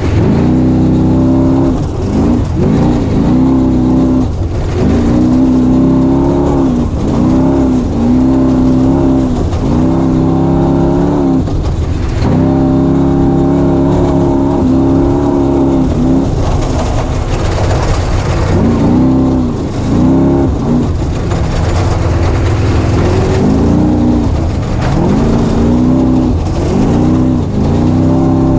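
Off-road race vehicle's engine under hard throttle, its pitch climbing and dropping again every second or two as the driver gets on and off the gas, over a steady low rumble from the drivetrain and terrain.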